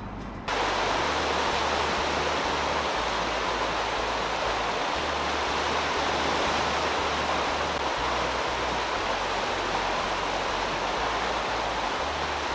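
Loud steady rushing of wind and water at sea, starting abruptly about half a second in, with a shifting low rumble underneath.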